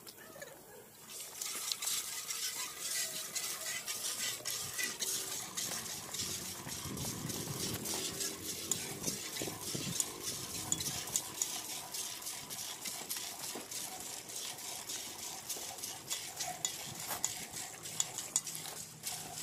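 A cow being milked by hand into a steel bucket: a quick, regular run of milk squirts striking the metal pail, starting about a second in.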